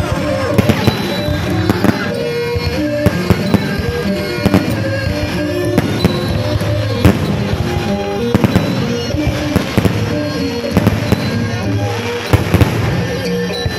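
Fireworks bursting overhead in a rapid, irregular string of sharp bangs, over loud music from the show's sound system.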